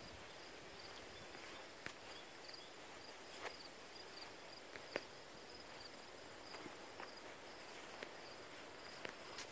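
Faint outdoor ambience of insects chirping in a steady high pulsing trill, with a few sharp isolated clicks scattered through.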